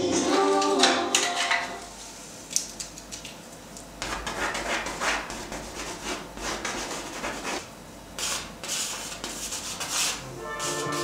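Irregular scraping and rubbing strokes of painting tools working paint on a surface. A sharp click comes about two and a half seconds in, and the strokes grow denser from about four seconds in.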